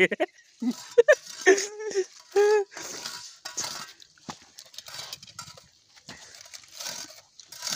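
A thin metal tool clinking and scraping inside a hot bamboo tube of chicken, with a hiss from the steaming tube. It is preceded in the first couple of seconds by a few short voiced calls.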